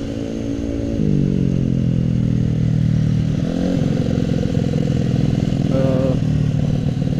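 Honda Supra X 125's single-cylinder four-stroke engine running while the motorcycle is ridden. Its pitch drops about a second in, then holds steady, and rises a little around three and a half seconds. The rider hears a 'tik tik tik' ticking from the engine and thinks it needs a service.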